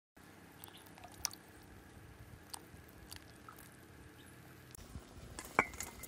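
Quiet cooking-pot handling: soft wet squishes and scattered small clicks as canned fish in tomato sauce is tipped into a pot of mushroom soup. Near the end comes one sharp metallic clink with a brief ring, metal bowl or can against the pot.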